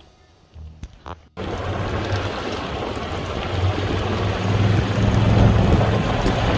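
Golf cart driving along: a steady low rumble with rushing wind noise on the microphone that starts suddenly about a second and a half in, just after a few short clicks.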